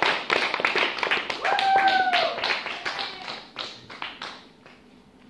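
Audience applauding, with a drawn-out cheer from one voice about two seconds in; the clapping thins out and dies away after about four and a half seconds.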